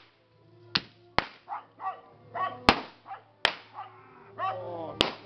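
About five sharp, irregularly spaced cracks, with short barks, like a dog's, in between.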